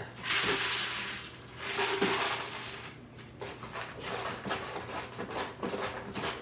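Many cats eating from food bowls on a tile floor: quick small clicks of chewing and bowl contact, a few per second, after two short bursts of rustling noise in the first two seconds. A steady low hum runs underneath.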